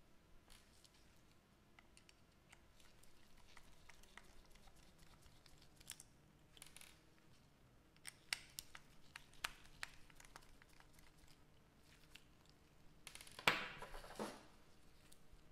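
Quiet handling noises: scattered small clicks and taps, with a louder scraping rustle about thirteen and a half seconds in.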